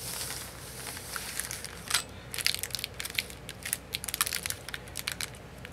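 Clear plastic packaging sleeve crinkling as it is pulled off a sheet of alphabet letters by hand. A soft rustle at first, then a run of sharp crackles from about two seconds in.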